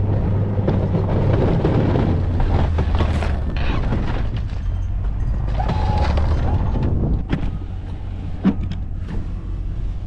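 Plow truck's engine running under load, a heavy low rumble with the noise of the plow pushing into snow and scattered knocks, easing a little about seven seconds in. One sharp knock comes about eight and a half seconds in. The piles being hit are frozen underneath and barely budge.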